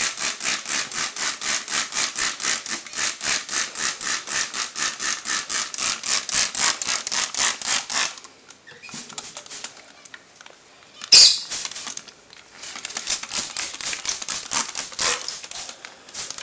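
Plastic trigger spray bottle squeezed rapidly, about four squirts a second, each a short hiss of water spraying onto a pigeon's feathers. The spraying stops for about four seconds midway, with one sharp knock in the pause, then starts again.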